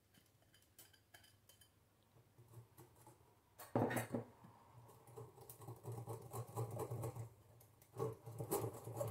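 Wire whisk beating pancake batter in a glass bowl: quick, irregular clinks of the wires against the glass over soft wet stirring. The first few seconds are faint, and the whisking gets louder about four seconds in.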